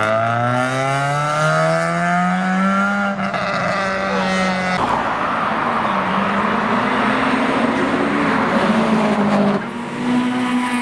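A modified car accelerating hard, its engine pitch climbing steadily for about five seconds. It then turns to a harsher, noisier engine and exhaust sound that cuts off abruptly near the end, where another engine starts revving up.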